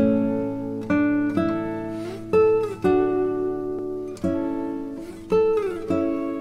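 Background music: a plucked acoustic guitar, a new note or chord struck about once or twice a second and ringing out, some notes sliding in pitch.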